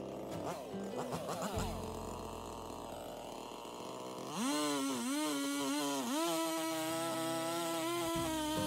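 Two-stroke chainsaw revved up to full throttle about four seconds in and run into a dead bur oak trunk. Its pitch dips twice as it takes the cut, then holds steady at high speed.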